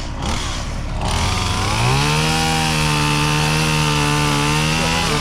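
Two-stroke chainsaw engine idling, then throttled up about two seconds in and held at a steady full-speed pitch, dropping back right at the end.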